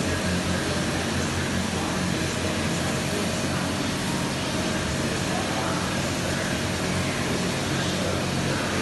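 Steady factory background noise: a constant low machinery hum under an even hiss, with no separate strikes or changes.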